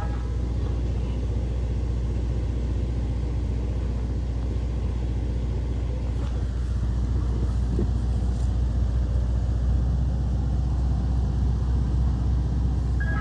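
Ice cream truck's engine running with a low, steady rumble, growing slightly louder in the second half.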